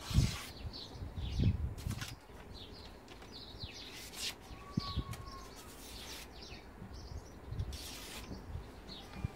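Custom O1 tool-steel knife slicing a sheet of paper in a sharpness test: a short swish about every two seconds, five in all. Small birds chirp throughout.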